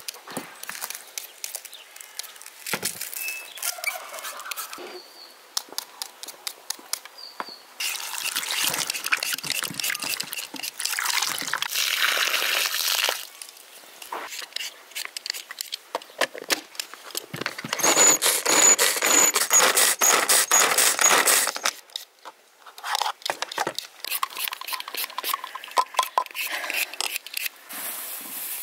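Handheld vegetable peeler scraping potatoes in quick, irregular strokes. Twice, for a few seconds each time, water splashes as peeled potatoes are rinsed in an enamel bowl.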